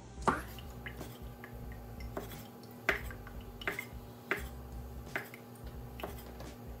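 Chinese cleaver chopping Chinese sausage on a wooden cutting board: sharp knocks of the blade striking the board, about one a second and not evenly spaced.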